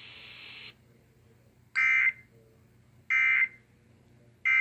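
Emergency Alert System (SAME) end-of-message data signal: three short, harsh digital bursts about 1.3 seconds apart, marking the end of a severe thunderstorm warning. A steady hiss cuts off just under a second before the first burst.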